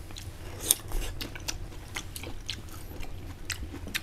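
A person chewing and biting crunchy food, with irregular crisp clicks, a few a second.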